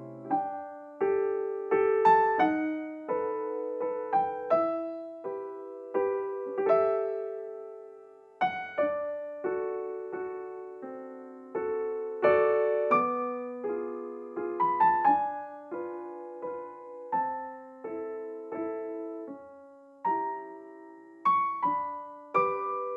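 Background music: a solo piano piece, its notes and chords struck one after another and left to fade.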